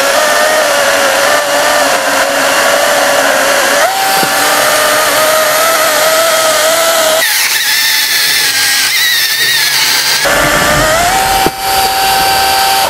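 KM Grand LR-C160 16-inch cordless electric chainsaw, running on two batteries, cutting through a log: a loud, steady motor whine over the chain tearing into wood. Its pitch dips and recovers as the load changes, then rises and holds steady near the end as the saw finishes the cut and runs free.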